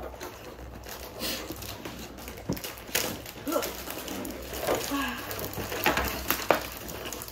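Cardboard headset box being handled and pried open: scattered taps, knocks and scrapes of the box and its sleeve, with faint murmured voices.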